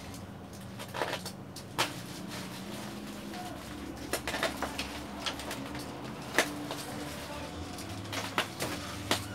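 Bubble wrap and plastic packaging crinkling and crackling as it is cut open with a box cutter: an irregular run of sharp crackles and clicks, a few louder than the rest, over a steady low hum.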